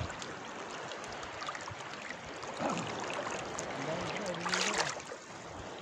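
Steady wash and slosh of seawater around people wading in the sea, with brief low voices in the background about four seconds in.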